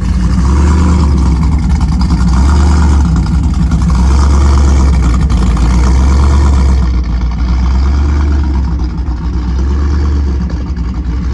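Ford SVT Lightning pickup's camshaft-upgraded V8 idling with a deep, steady rumble, its level swelling and easing every second or two.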